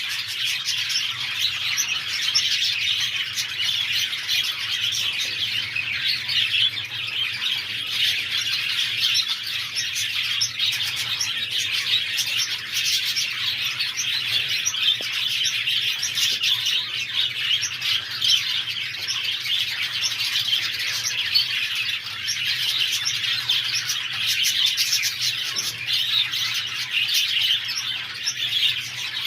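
A group of budgerigars chattering without pause, a dense, unbroken mix of many short chirps and warbles.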